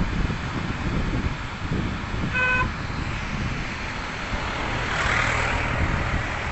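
A short single vehicle-horn toot about two and a half seconds in, over a steady rushing noise with low rumble from road traffic.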